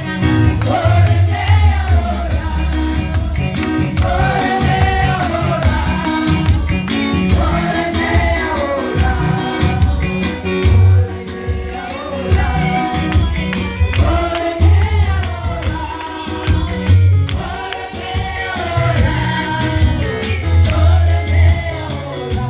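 Gospel music: a choir singing over a band with strong bass and a tambourine on the beat.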